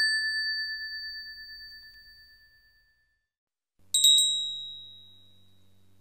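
A temple bell is struck once and rings at a clear pitch, wavering as it dies away over about three seconds. About four seconds in, a smaller, higher-pitched temple bell is struck twice in quick succession and rings out over a faint low hum.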